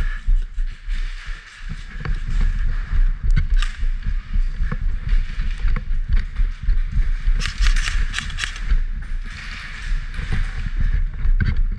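Rustling gear and footsteps of a player on the move, close to a body-worn camera, with irregular low rumbling handling noise on the microphone and scattered sharp clicks; a burst of louder rustling comes about two-thirds of the way in.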